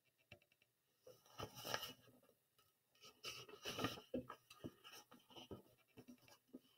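Faint paper rustling and brushing as a book page is turned and smoothed flat by hand, once about a second and a half in and again for a couple of seconds around the middle.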